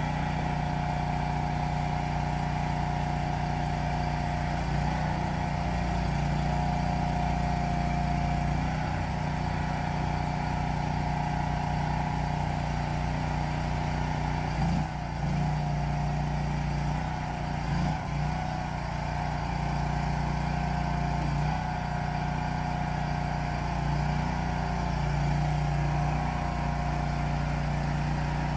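Gas engine of a 2022 Agrotk CRT23 tracked skid steer loader running steadily, with a steady higher whine alongside. The engine note dips briefly twice about halfway through.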